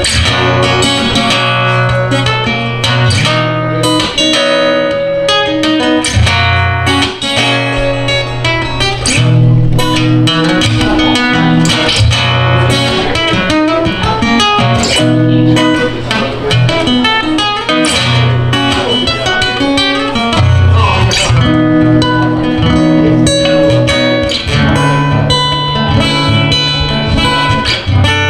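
Solo acoustic guitar played as an instrumental: low bass notes under a melody of quick picked notes, with no singing.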